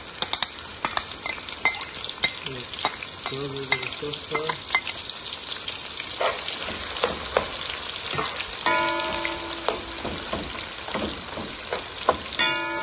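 Sliced onions sizzling in hot oil in a metal pot, with a slotted metal spoon scraping and clicking against the pot as they are stirred. This is the start of frying the onions for a chicken curry (qorma).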